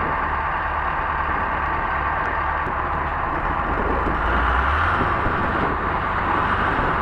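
Heavy vehicle engine running steadily, with its low hum shifting about five seconds in.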